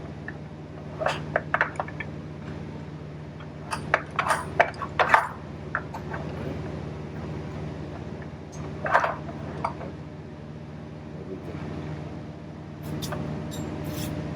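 Irregular metallic clinks and knocks of steel tools and a baler wheel hub being handled and struck, loudest in a quick cluster about four to five seconds in, over a steady low hum.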